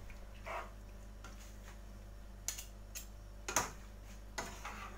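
Metal fork clicking and scraping against a frying pan while penne in a creamy sauce is tossed and mixed: a few scattered clicks, the sharpest about three and a half seconds in.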